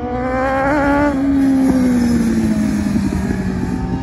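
Sport motorcycle engine on a race circuit, its note rising over about the first second and then falling steadily as the bike heads into a corner.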